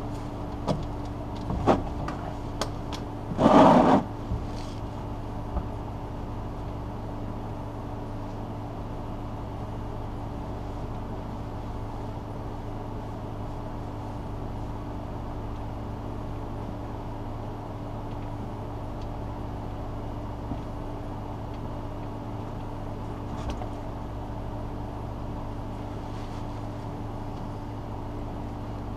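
A few clicks and knocks of a socket and ratchet working an oil drain plug loose, with a louder rasp of under a second about three and a half seconds in. After that only a steady low hum.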